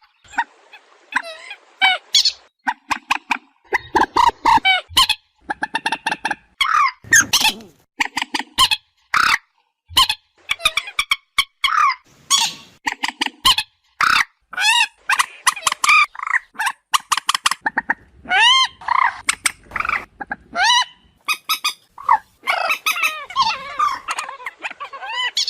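Moorhen calling: many short, loud calls in quick succession with brief gaps between them, several sliding up and back down in pitch.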